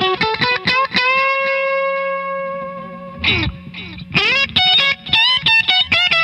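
Background music: fast distorted electric guitar lead, with a long held note about a second in before the quick runs resume.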